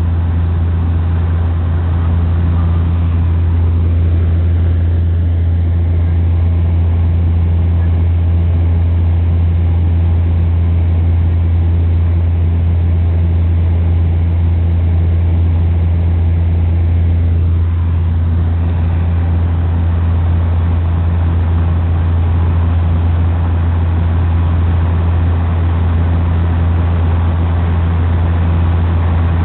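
Bombardier Q400 turboprop engines and propellers heard from inside the passenger cabin: a loud, steady low drone with a fainter higher hum above it and an even rush of air noise, unchanging throughout.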